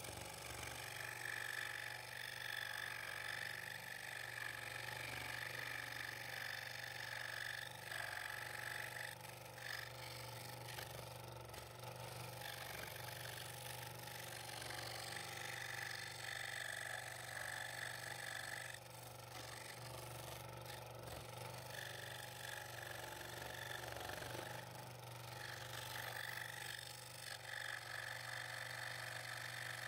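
Scroll saw running, its blade reciprocating through a double-stacked wooden board as it cuts tight internal curves, over a steady motor hum. The cutting sound dips for moments several times as the work is turned and fed.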